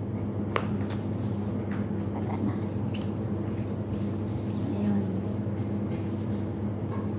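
A steady low machine hum, with a few sharp taps of a knife on a plastic cutting board as mushrooms are sliced.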